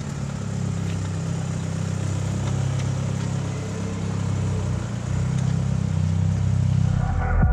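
Mitsubishi Lancer Evolution VIII's turbocharged 4G63 four-cylinder engine running steadily.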